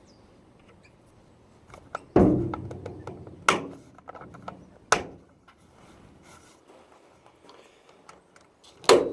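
Four sharp knocks and clunks, the first the loudest and followed by a short rattle, typical of hard objects being handled and set down.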